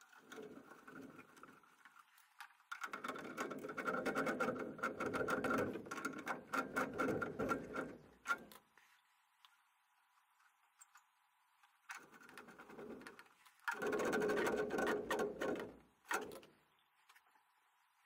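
Hand and tool work at a gas furnace's gas valve and brass inlet fitting: bursts of rapid clicking and scraping. The longest burst runs from about three to eight seconds in, and there are more near the end.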